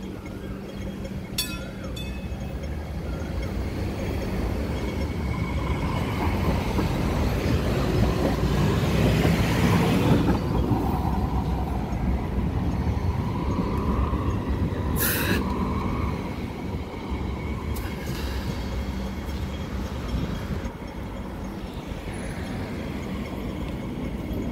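Hong Kong Light Rail Phase 5 two-car train running along the track at the stop, its running noise building to its loudest about ten seconds in and then easing a little. About fifteen seconds in there is a short sharp sound.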